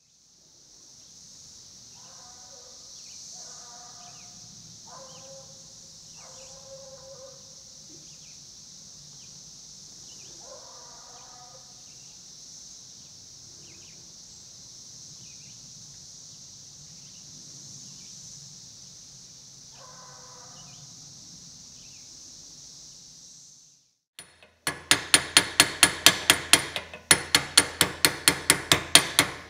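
Brood X periodical cicadas droning in a steady high chorus, with a bird calling a few times over it. About 24 seconds in, welding on the cast-iron steady rest takes over, the arc crackling in rapid even pulses, about six a second.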